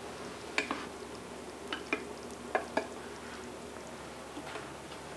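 Light clinks and taps of a measuring cup against a flour canister as flour is scooped out, about five sharp ticks in the first three seconds over a faint steady hum.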